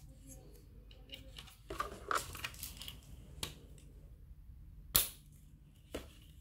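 Hard plastic parts of an air-conditioner deflector frame being handled and fitted together: a run of small clicks and scrapes, then a sharp plastic snap about five seconds in and a smaller click about a second later.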